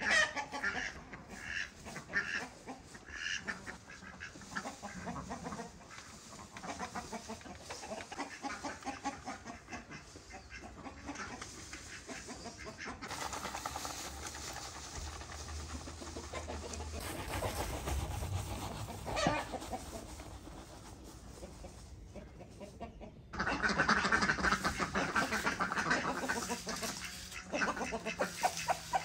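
Yard chickens clucking, with many short calls one after another. They grow suddenly much louder and busier about four-fifths of the way through.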